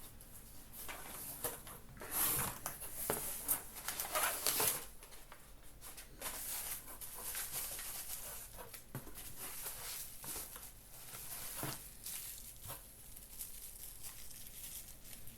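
Packaging being handled and opened: irregular crinkling, rustling and tearing with a few sharp clicks, busiest a couple of seconds in, then lighter.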